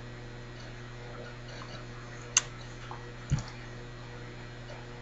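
Steady low hum of room tone, broken by one sharp click about two and a half seconds in and a short low thump about a second later.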